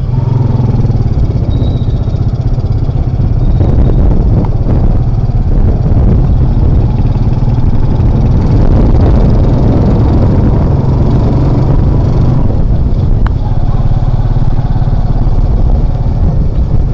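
Motorcycle engine of a Philippine tricycle running steadily under way, with a constant hiss of rain and road noise over it.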